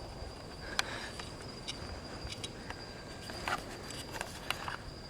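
Crickets or other night insects keeping up a steady high trill, with scattered footsteps and small clicks from walking.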